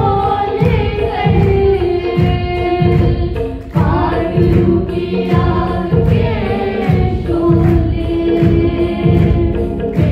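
Hindi Christian worship song performed live: a young woman singing the lead into a microphone with backing singers, over electronic keyboard chords and a steady beat.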